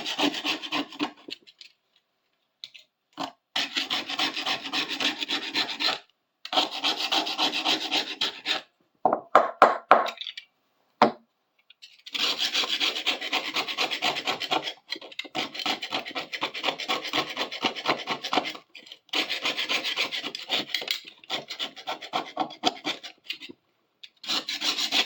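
Rapid hand abrasion of a dirty, rusty small metal part, rubbing it back and forth to strip dirt and rust down to bare metal. The strokes come in runs of a few seconds with short pauses, and a few slower, heavier strokes about ten seconds in.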